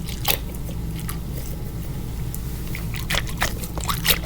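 A small Orbeez-filled squishy fidget ball being squeezed in the hand: short, irregular squelches and crackles, bunched together near the end.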